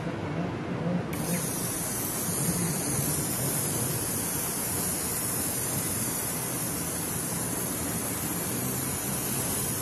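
Aerosol can of 3M Paint Defender spray-on film hissing in one long continuous spray, starting abruptly about a second in.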